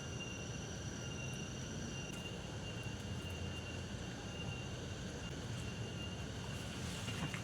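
Forest ambience: a steady low rumble under thin, steady high-pitched insect tones, with a few faint clicks.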